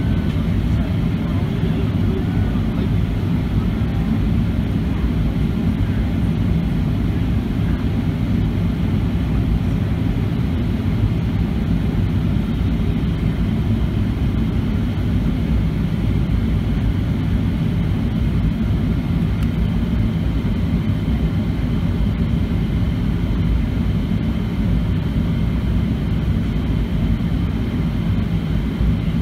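Steady cabin noise of a Boeing 737-700 on approach: the drone of its CFM56-7B engines and the rush of air along the fuselage, heard from a window seat beside the wing.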